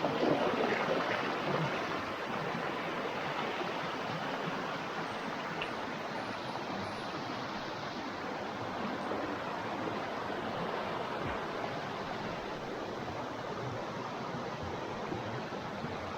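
Rushing river water, a steady, even wash of noise, a little louder in the first couple of seconds.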